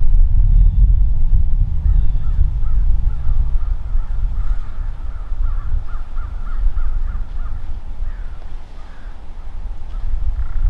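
A bird giving a quick series of short, repeated calls for several seconds over a loud low rumble of wind on the microphone. The rumble eases in the middle and picks up again near the end.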